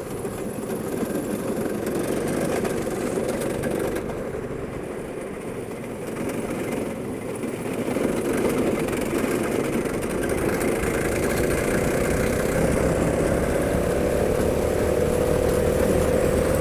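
Go-kart engine running steadily; from about halfway through it grows louder, and its pitch rises slowly as it speeds up.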